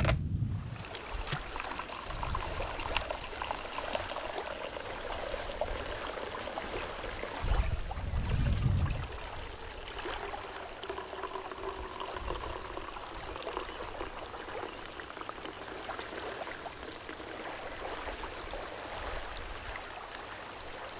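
Coffee poured from an insulated bottle into a metal camp cup, a steady trickling stream. A brief low rumble about eight seconds in.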